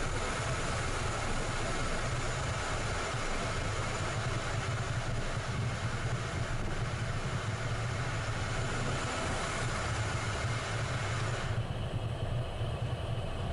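Steady cockpit noise of a Citation business jet taxiing, its turbofan engines running at taxi power: a low hum under an even hiss. The hiss drops away sharply near the end.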